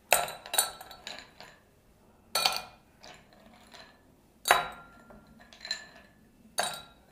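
Ice cubes dropped by hand into tall drinking glasses, clinking against the glass. About seven sharp clinks come at uneven intervals, each ringing briefly.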